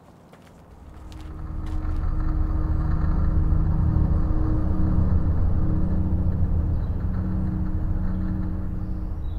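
A few light snaps or steps at first, then a low rumbling drone swells in over about a second and holds, with several steady low tones that shift from one pitch to another.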